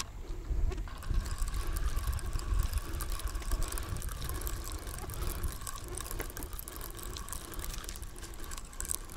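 Fishing reel being cranked with a fine mechanical ticking while a hooked carp is played on a bent rod, under a steady low wind rumble on the microphone.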